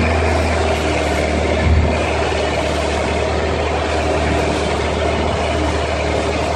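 Boat engine running steadily at an even speed, a constant low drone.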